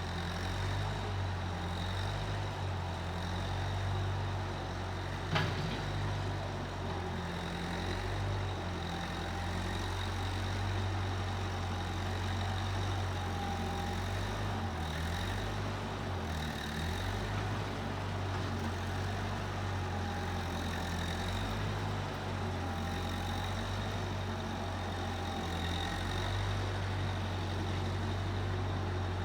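Case 1530 Uni-Loader skid steer's engine running steadily, its pitch sagging briefly about halfway through, with one sharp click about five seconds in.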